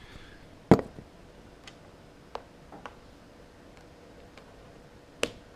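Small handling clicks from an iPhone and its Lightning cable being handled, with one sharp click about a second in, another near the end, and a few faint ticks between.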